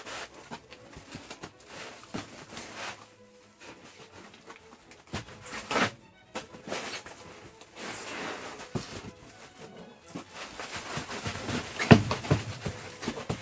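Plastic wrap crinkling and foam packing rubbing as a wrapped CNC router gantry is worked loose and lifted out of its foam-lined box, with louder handling bumps about six seconds in and again near the end.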